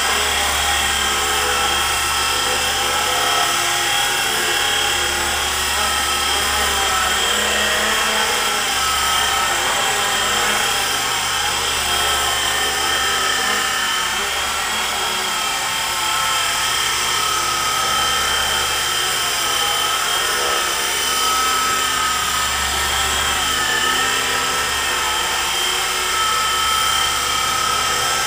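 E-flite SR120 micro electric RC helicopter in flight: a steady high whine from its small electric motors with the whir of the spinning rotors, the pitch drifting a little as the throttle and tail rotor are worked. A low rotor hum swells and fades every few seconds.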